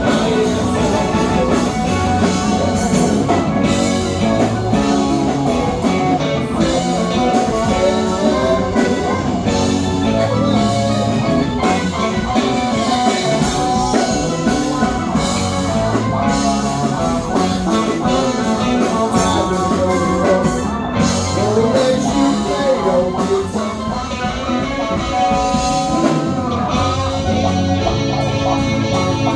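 Live rock band playing: electric guitar over a drum kit, loud and continuous, without vocals.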